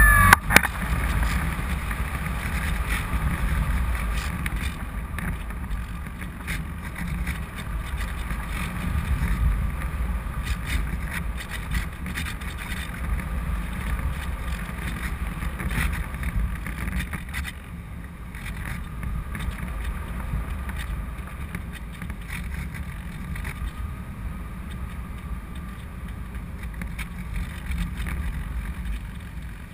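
Airflow buffeting a GoPro camera on a Parkzone Radian Pro RC glider in flight: a steady low wind rush that swells and eases as the plane manoeuvres.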